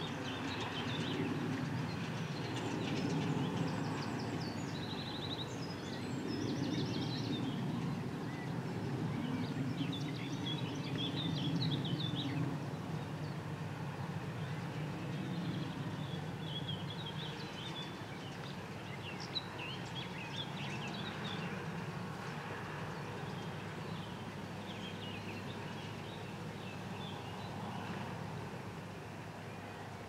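Case Puma 150 tractor and New Holland BR7050 round baler working at a distance, a low steady engine rumble. Birds sing in short chirping phrases over it throughout.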